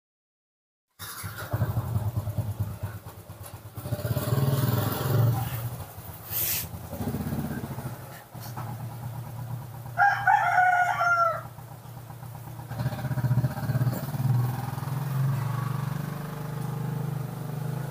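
A low engine rumble of passing motor traffic rises and falls. About ten seconds in, a single drawn-out crowing call like a rooster's sounds over it for about a second and a half, falling slightly in pitch. The sound cuts in suddenly about a second in.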